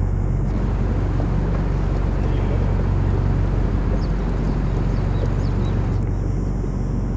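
Sightseeing boat's engine running steadily, a constant low drone, mixed with the rush of water and air past the boat.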